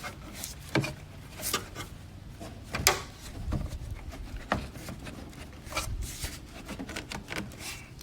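Irregular clicks, knocks and rubbing of plastic as the new engine air filter is handled and seated in the airbox of a 2002 GMC Envoy's 4.2 engine, about six sharp knocks over the stretch.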